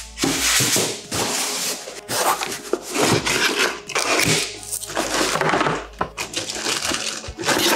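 Packaging being handled: styrofoam packing blocks rubbing and creaking, and a cardboard box being lifted and its flaps pulled open, in a run of irregular crunching and scraping noises.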